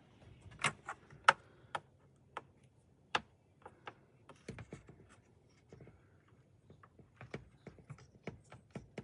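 Irregular sharp plastic clicks and taps as a pick and fingers work the locking tab and pull the wiring connector off a backup camera, the loudest about a second in.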